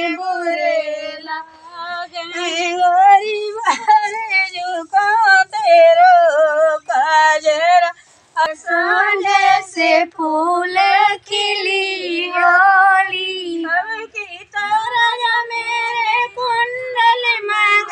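A high female voice singing a traditional Holi folk song (hori) unaccompanied, in long wavering held notes broken by short breaths.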